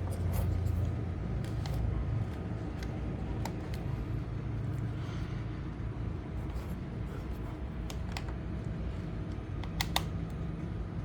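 Scattered light clicks and taps from handling a laptop charger's cable and magnetic connector head, with a few sharper clicks about ten seconds in, over a steady low hum.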